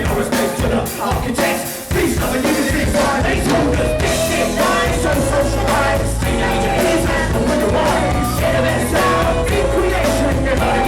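Live hip hop band music with vocals over it, played loud; the music drops briefly and comes back in fuller about two seconds in, with heavy bass.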